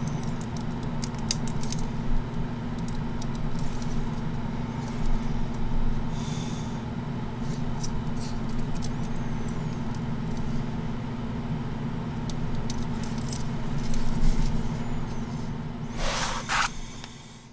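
Plastic model kit parts clicking and rattling as the assembled figure is turned and handled, with a brief louder rustle near the end, over a steady low hum.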